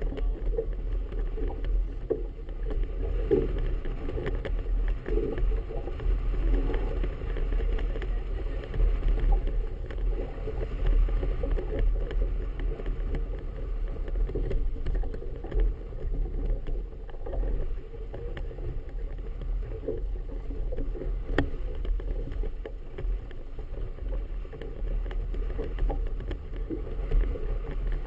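Choppy harbour water slapping against a small boat's hull, with wind rumbling on the microphone.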